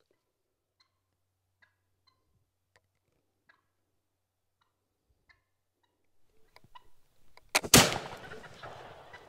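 Near silence with a few faint clicks, then a single shot from a black-powder flintlock gun about three-quarters of the way in: a sharp crack followed a fraction of a second later by the louder main report, which echoes and dies away over about a second and a half.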